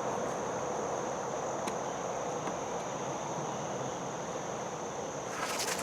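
Background insects, crickets or similar, make a steady high-pitched chirring over even outdoor noise. There is a faint click a little over a second in and a brief scrape or rustle near the end.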